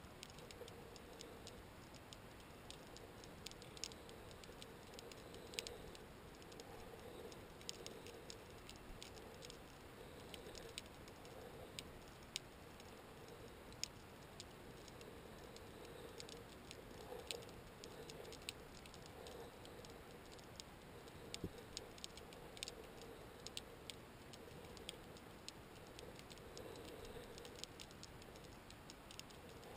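Irregular sharp clicks and crackles underwater, scattered several to the second at uneven intervals, over a faint steady low hum.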